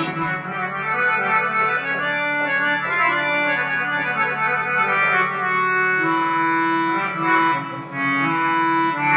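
Instrumental music with no singing: an organ-like electronic keyboard holding sustained notes and chords that step from one pitch to the next.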